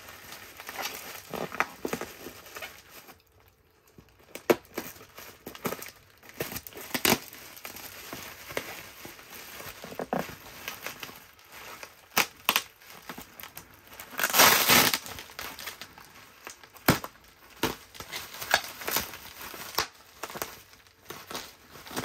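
Packing material crinkling and rustling as it is handled and pulled away during unboxing, with scattered small clicks and knocks. There is one longer, louder rustle about fourteen seconds in.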